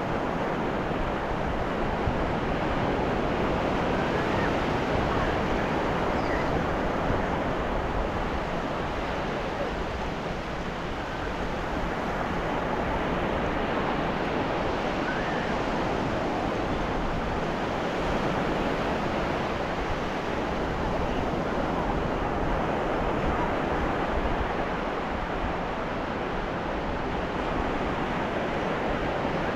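Ocean waves breaking and washing onto a beach, a steady surf rushing in and out with gentle rises and falls in loudness.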